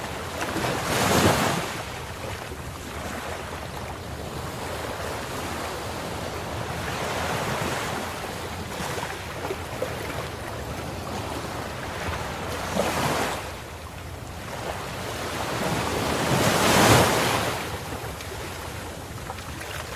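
Ocean waves breaking and washing on a shore, a steady hiss of surf with three louder breakers, about a second in, near 13 seconds and near 17 seconds, the last the loudest.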